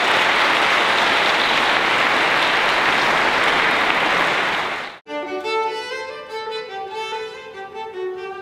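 Audience applauding steadily, cut off abruptly about five seconds in by instrumental music of bowed strings led by violin.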